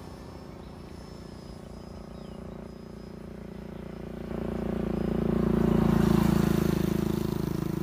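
Thin, steady whine of a 70 mm electric ducted fan on a radio-controlled jet, fading through the first half, over a low steady rumble. About four seconds in the rumble swells, is loudest around six seconds, then eases off.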